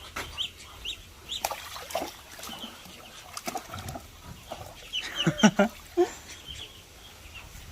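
Muscovy duckling peeping in short, high, repeated cheeps, with lower calls from the adult call ducks and a few sharp knocks.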